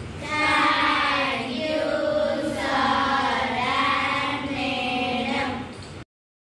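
A group of girls chanting together in unison, holding long sung notes. The chant cuts off suddenly about six seconds in.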